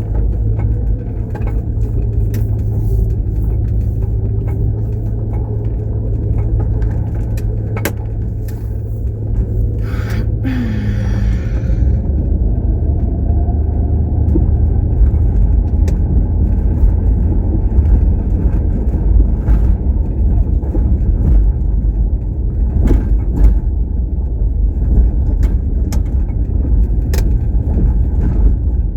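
Car driving: a steady low rumble of engine and road noise, growing a little louder after about twelve seconds, with scattered light clicks and knocks.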